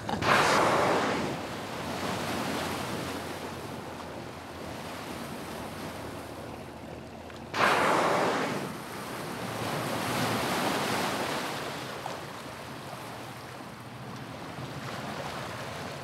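Blue whale exhaling at the surface twice, about seven and a half seconds apart: each blow a sudden rush of air that fades over a second or two. Steady sea and wind noise lies between the blows.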